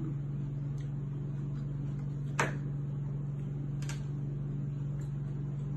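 A serving plate set down on a wooden table: one sharp knock about two and a half seconds in, then a few fainter clicks, over a steady low hum.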